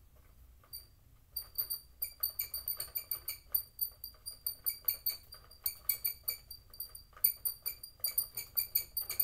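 Bruder toy conveyor belt being hand-cranked. It gives a quick run of short, squeaky plastic clicks, about three to four a second, starting about a second in.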